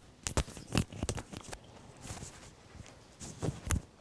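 Irregular soft thumps and rustles of movement and handling, about half a dozen, with the loudest knocks near the start and just before the end.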